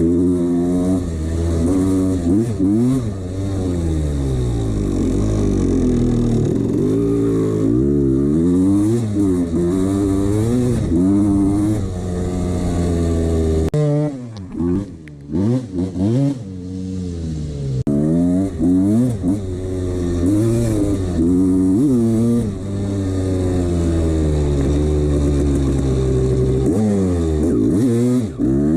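1989 Honda CR250's single-cylinder two-stroke engine revved over and over, its pitch rising and falling in repeated waves. About halfway through it drops low for a few seconds with short, choppy throttle blips, then revs up again.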